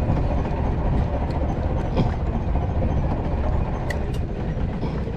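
Boat engine running with a steady low rumble, and a few faint clicks.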